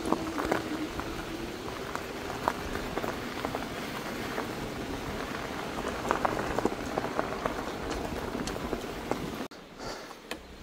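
Fat knobbly tyres of an electric bike rolling over a gravel and dirt track: a dense crunching crackle with small stones ticking, over a faint steady hum. The noise drops away abruptly near the end.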